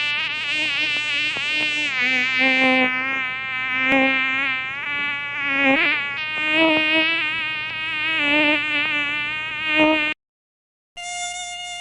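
Mosquito whining in flight, the buzz wavering up and down in pitch as it moves about. It breaks off about ten seconds in, and after a short silence a steadier, higher-pitched whine starts near the end.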